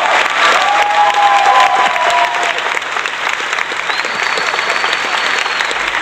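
Recorded applause played as a sound effect: a crowd clapping steadily, with a few held voices over it in the first two seconds.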